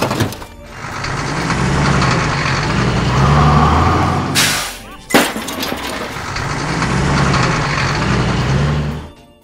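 Cartoon truck engine sound effect running with a low rumble that swells and fades. About four and a half seconds in there is a short burst of hiss, followed by a sharp click, and then the engine runs on until it stops near the end.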